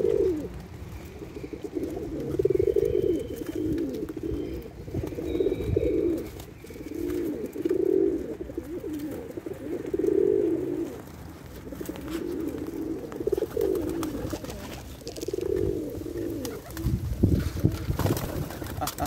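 A flock of Pakistani high flyer pigeons cooing, overlapping coos repeating every second or two. There is a louder low thump with a few clicks near the end.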